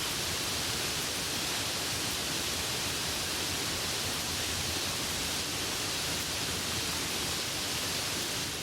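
Steady rain: an even hiss with no single drops or other sounds standing out.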